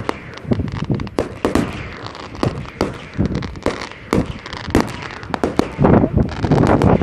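Fireworks display: a fast, irregular run of bangs and pops from bursting shells, several a second. The bangs crowd together and grow louder near the end.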